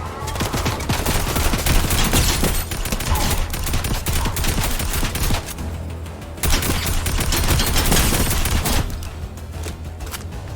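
Gunfire in a video game's sound: dense volleys of rapid automatic shots over a steady low rumble. The firing grows louder for a few seconds about two-thirds of the way through.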